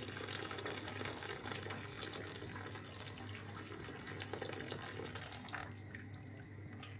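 Boiling water being poured steadily into a pot of simmering seafood soup, a continuous splashing pour that stops a little before the end.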